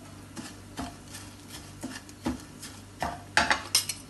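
A spoon stirring and scraping dry-roasting grated coconut and spice powders in a pan: irregular scrapes and taps against the pan, with a quick run of louder clinks about three and a half seconds in.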